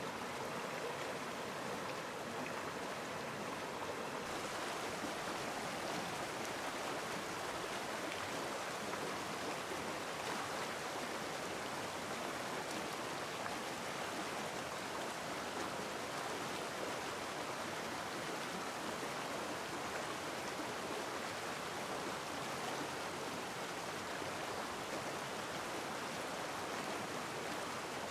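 Shallow mountain stream rushing over rocks: a steady, even wash of running water that turns a little hissier about four seconds in.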